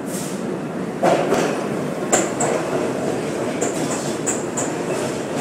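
New York City subway train arriving and running along the platform: a steady rumbling roar that jumps in loudness about a second in, then a clickety-clack of wheels over the rails, sharp clicks coming in pairs.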